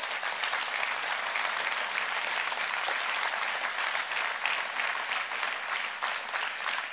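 Audience applauding: many people clapping steadily, the clapping thinning slightly near the end.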